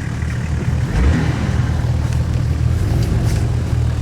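Off-road 4x4 vehicle's engine running steadily, picking up slightly about a second in.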